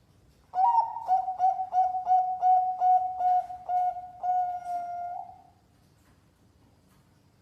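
Zebra dove (Bangkok-line perkutut) cooing: a quick run of short coos on one pitch, about ten of them, ending in a longer held note.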